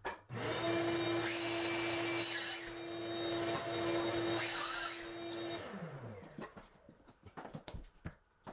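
An electric motor starts suddenly, runs steadily with a hum of one pitch and a rush of air, surging brighter twice, then winds down with falling pitch after about five seconds.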